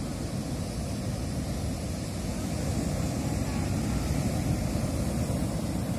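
Steady low roar of heavy surf from high waves breaking on the beach, with wind rumbling on the microphone.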